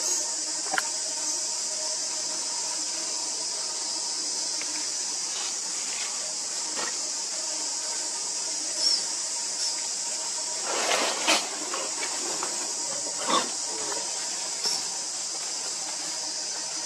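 Steady high-pitched hiss of an insect chorus, with a few brief rustles of dry leaves, the loudest about eleven seconds in.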